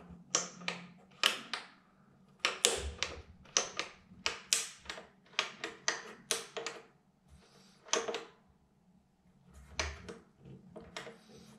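Sharp, irregular clicks and taps of plastic and chrome as fingers handle the push-and-turn control knobs of a Grohe Euphoria SmartControl shower system, prying off and snapping in the knobs' marking caps. There is a brief lull about seven seconds in.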